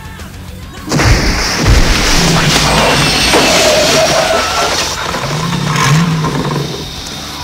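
A sudden loud rush of noise with a low engine-like tone under it breaks in about a second in, holds for about six seconds and drops near the end. It is an added car sound effect for the toy DeLorean time machine accelerating.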